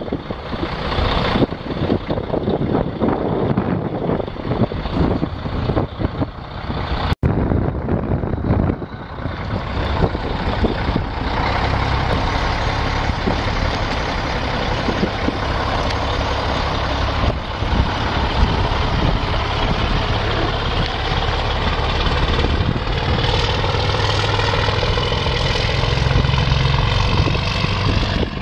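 A 2006 Freightliner Columbia semi truck's Mercedes-Benz OM 460 LA six-cylinder diesel running. The sound is choppy for about the first seven seconds; after a cut it settles into a steady, even run.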